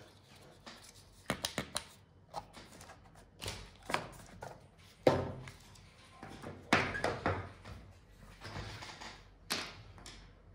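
Handling noise from a plastic veterinary continuous syringe and its parts: irregular clicks, knocks and rustles as the pieces are handled and set down on a table. There is a quick run of small clicks early on, the loudest sharp knock comes about five seconds in, and there is rustling a little later.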